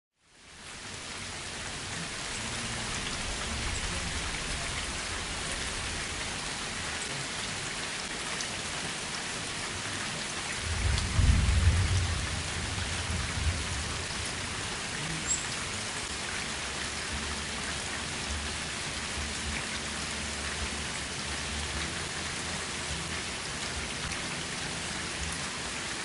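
Steady rain falling on a paved driveway and lawn, an even hiss of drops. A low rumble of thunder swells about eleven seconds in and fades over a couple of seconds, the loudest moment.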